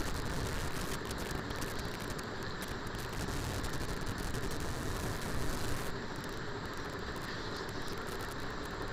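Steady hiss and low rumble of a wok cooking on a gas stove as fried liver pieces and capsicum are stirred into the sauce with a spatula.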